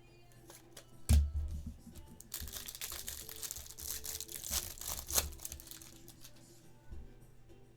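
Trading-card pack wrapper being torn open and crinkled by hand: a knock about a second in, then about three seconds of dense crinkling that ends in a sharp click.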